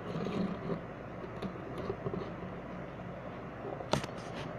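Faint handling noises over a steady low hum, with one sharp click about four seconds in.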